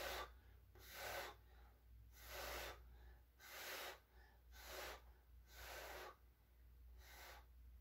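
Faint human breaths close to the microphone: about six soft, even puffs a little over a second apart.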